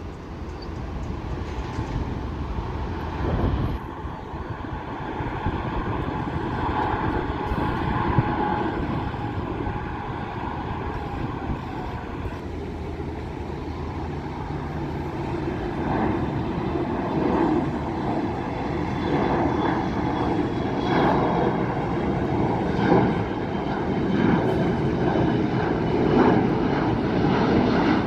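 Airliner engines running, a continuous rumble with a faint whine, slowly growing louder.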